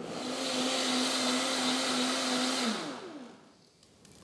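Electric blender running steadily as it purees cooked asparagus soup, then switched off near the end, its motor falling in pitch as it spins down.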